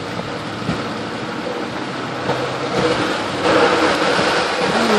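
Car driving along a rain-soaked, flooded street, heard from inside the cabin: steady tyre and water noise that grows louder about three and a half seconds in.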